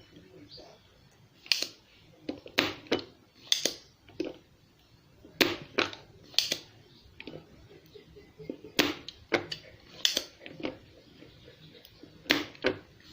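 Spring-loaded desoldering pump (solder sucker) being cocked and fired again and again: about a dozen sharp snaps, some in quick pairs, as melted solder is sucked off capacitor terminals.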